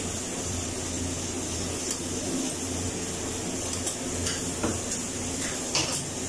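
A stainless-steel tea tumbler and cups being handled on a steel counter, giving a few light metallic clinks and taps, the sharpest near the end, over a steady kitchen hum and hiss.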